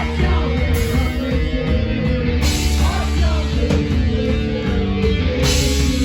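Live rock band playing loud, heavy rock music, with electric guitar, bass and drums.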